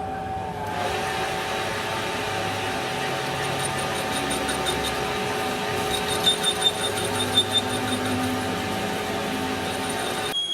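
Workshop machinery running steadily with a held whine, with several sharp metallic knocks about six to seven and a half seconds in.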